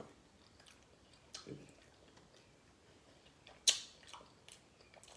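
A person eating: quiet chewing with a few short mouth clicks and smacks, the sharpest one about three and a half seconds in.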